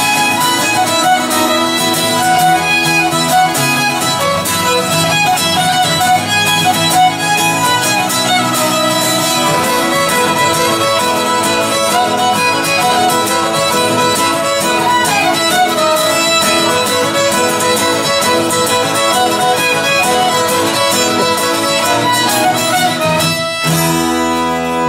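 Two fiddles, an acoustic guitar and a piano accordion playing a brisk jig together. About a second and a half before the end the tune finishes on a held final chord.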